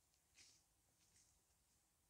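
Near silence with two faint, brief rustles of dry leaf litter, about half a second in and again just after a second in.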